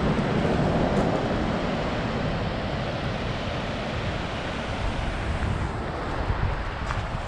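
Steady rush of whitewater rapids on the Roaring Meg river, mixed with wind buffeting the microphone.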